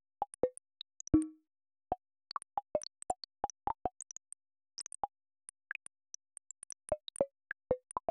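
Earthquake data sonification: a stream of short, irregularly spaced synthetic blips at many different pitches, a few each second. Each blip marks one earthquake, with its pitch set by the quake's magnitude. The loudest is a lower, longer-ringing tone about a second in.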